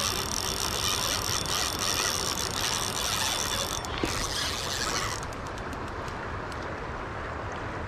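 Spinning reel being cranked against a hooked fish: a steady mechanical ratcheting whir of gears and clicks that eases off about five seconds in, leaving only a few scattered ticks over low wind rumble.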